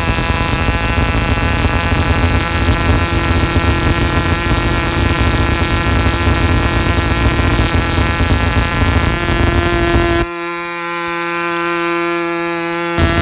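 Taipan Series 66 1.5 cc model diesel engine running steadily at speed with a high, buzzing drone, turning an 8x4 propeller. It is in its first running-in session on a new, very tight piston. About ten seconds in the low rumble drops away and the sound is a little quieter and cleaner, then the fuller sound comes back near the end.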